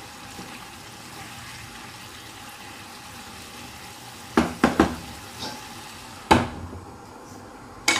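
Lamb liver simmering in its sauce in a frying pan, a steady bubbling sizzle. About four and a half seconds in there are three quick knocks against the pan, and a little after six seconds a glass pan lid clanks down onto the pan, with another clank near the end.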